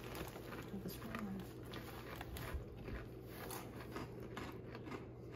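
Faint crunching and small clicks of people chewing a crunchy sweet snack, with a brief low hum of a voice about a second in.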